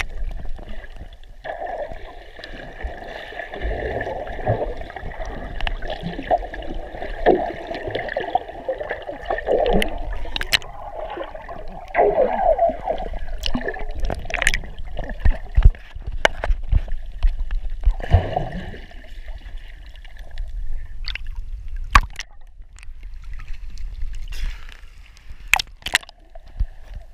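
Water recorded underwater by a swimmer's camera: muffled gurgling and swishing with bubbles and scattered sharp clicks.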